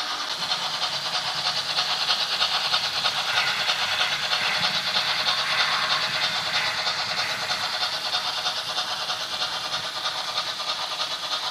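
Märklin H0-scale model steam locomotive running along the layout track: a steady, fast rattle of wheels and motor on the rails.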